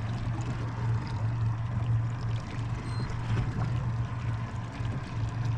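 Steady low hum of a fishing boat's engine idling, with water sloshing against the hull.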